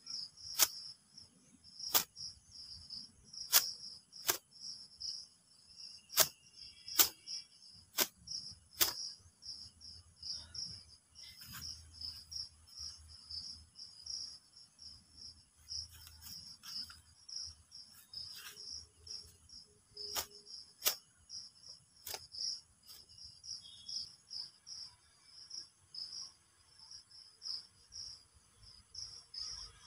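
Insects chirping steadily in a fast, high pulsing trill, over which come sharp slaps of wet hair being flicked and beaten with a cotton gamcha towel, about eight in the first nine seconds and a few more about twenty seconds in.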